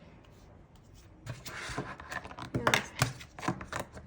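Handling noises as slime and its plastic container are put back into the box: a soft rustle, then a quick run of sharp clicks and knocks.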